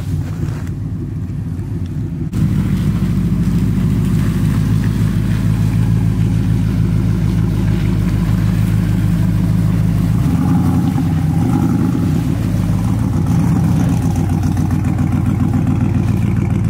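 Lifted Chevy Silverado Z71 pickup's engine running low and steady as the truck creeps along at walking pace. The engine comes in loudly and suddenly about two seconds in, and its tone shifts a little about ten seconds in.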